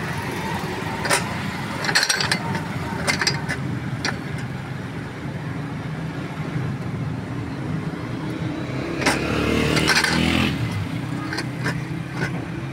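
Steady street traffic rumble, with a vehicle passing louder about nine seconds in. Over it come a few sharp metallic clicks and clinks from a cast-iron lever citrus press and its steel cup as sweet-lime halves are loaded and pressed.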